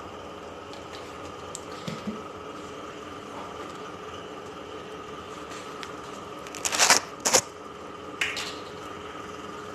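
Kitchen containers and utensils being handled over a steady room hum: a couple of light clicks about two seconds in, then a louder burst of clattering knocks about two-thirds of the way through and one more shortly after.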